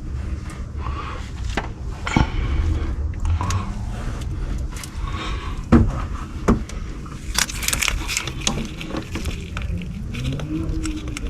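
Hand tools working on the engine: metal clinks, scraping and a few sharp knocks, loudest about six seconds in, over a steady low rumble.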